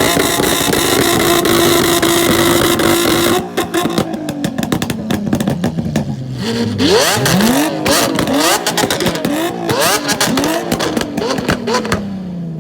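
Performance car engine held at high revs, then let off, with pops and crackles from the exhaust as the revs fall. It is followed by a run of quick throttle blips about once a second.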